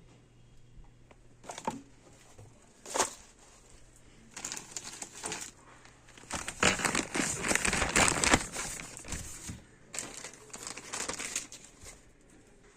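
Packaging being handled, crinkling and rustling in irregular bursts, loudest and busiest in the middle.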